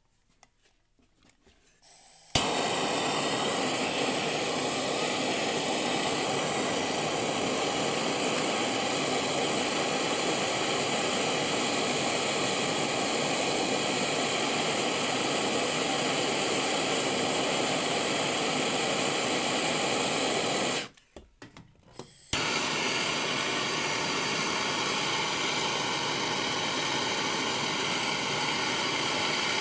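Handheld gas plumbing torch burning with a steady hiss as it heats copper pipe and brass fittings to sweat the joints with solder. It starts suddenly about two seconds in, cuts out for a second or so near the two-thirds mark, then resumes.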